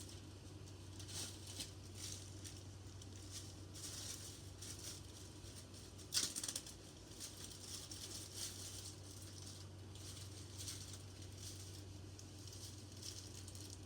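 Faint light rattling and rustling of small slime ingredients and containers being handled, with one louder brief rustle about six seconds in, over a steady low hum.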